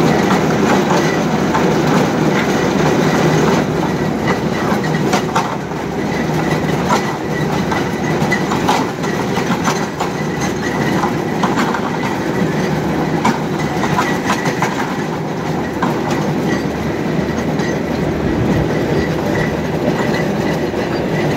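Truck-mounted borewell drilling rig at work: its engine running steadily while the drill pipe turns down into the ground, with a constant clatter and irregular metallic clanks from the rig.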